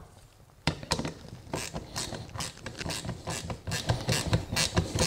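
Small bolts clicking and rattling as they are set in place and started by hand into a power window motor's housing on its metal regulator: after about half a second of quiet, a run of light, irregular clicks.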